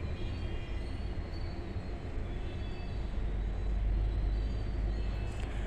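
Onions and tomatoes frying in oil in an iron kadhai, stirred with a steel ladle, over a steady low rumble.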